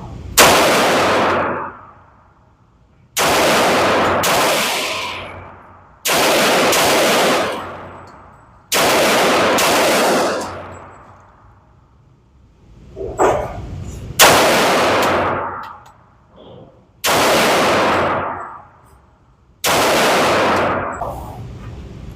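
Seven loud gunshots from a firearm being fired at a slow, steady pace, about one every three seconds with a longer pause in the middle. Each shot rings out in a long echo.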